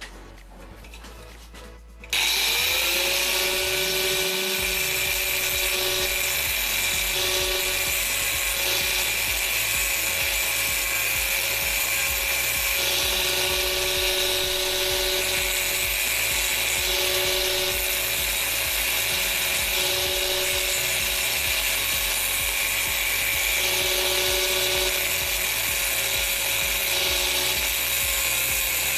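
Angle grinder switched on about two seconds in, then running steadily with its disc grinding down a fresh weld on a steel bicycle sprocket.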